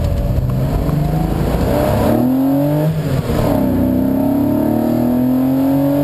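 Porsche 912's air-cooled flat-four engine accelerating hard, heard from inside the cabin. The pitch climbs, breaks briefly about three seconds in at a gear change, then climbs steadily again.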